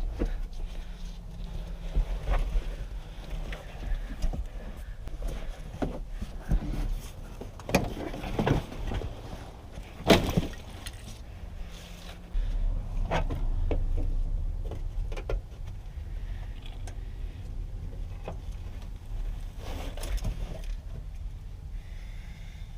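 Scattered clunks, knocks and rattles of interior trim and parts being pried and pulled out of a car by hand, with a low rumble for a couple of seconds in the middle.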